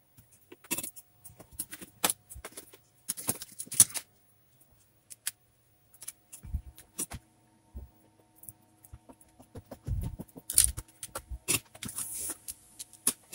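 Irregular small clicks, taps and rustles of hands handling metal shields, screws and circuit boards inside an opened LCD TV, with a few dull knocks.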